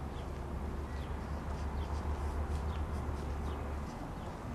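Small birds chirping, short high chirps coming several times a second, over a steady low rumble that falls away near the end.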